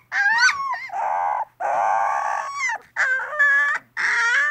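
Malamute puppy howling: about five high howls in a row with short gaps between, some gliding and wavering in pitch, others rough and hoarse.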